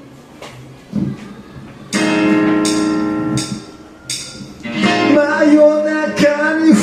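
Music: guitar chords strummed and left to ring, with a voice starting to sing about five seconds in.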